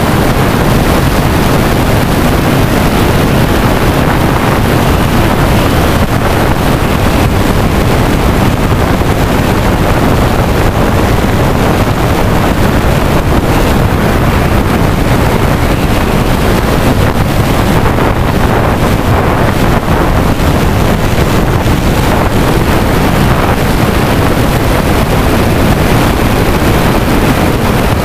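Loud, steady rush of wind buffeting the microphone of the camera mounted on an FPV flying wing diving at high airspeed.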